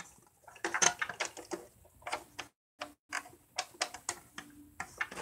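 Plastic pieces of a Calico Critters boathouse being handled, giving a series of irregular clicks and knocks as parts are moved and snapped into place.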